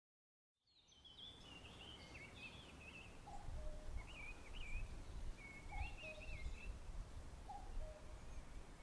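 Birds singing outdoors: a quick warbling high song with a lower two-note call repeated three times, over a faint low rumble.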